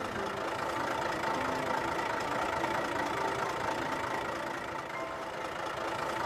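Engine of a cartoon snowplow (snowblower) running steadily as it starts working.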